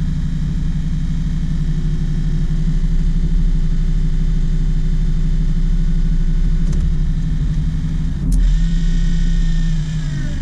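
Excursion/Bison 24 V, 86 lb-thrust electric trolling motor running steadily on test after its melted brush holder was replaced, with an even hum. There is a click about eight seconds in, after which the hum changes, and its pitch starts to drop near the end.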